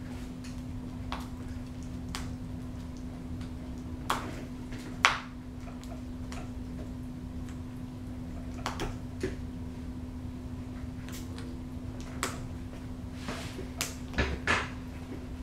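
Peregrine falcon tearing and biting at a quail carcass: scattered sharp snaps and rips a second or more apart, the loudest about five seconds in, over a steady low hum.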